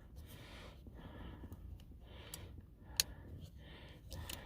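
Faint clicks and ticks of a small screw and screwdriver being worked at a steering-wheel paddle-shifter mount, with one sharper click about three seconds in, over soft breathing.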